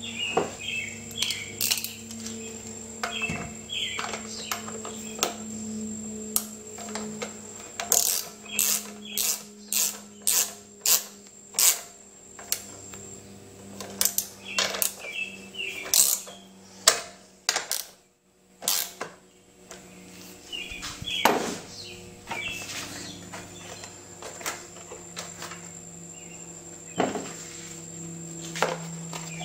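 A hand ratchet tightening the bolts of a mower engine's air cleaner base. Its sharp metallic clicks come in short runs, often about two a second, thickest in the middle stretch, with pauses between runs.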